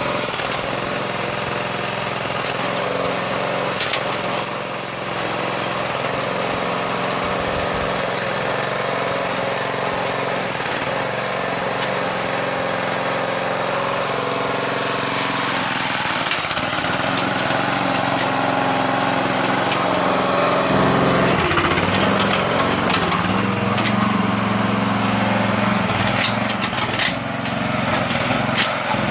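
Small engine of a U-Dig 30 mini backhoe running steadily. About 21 s in its note shifts and gets a little louder, and a few sharp clanks come near the end.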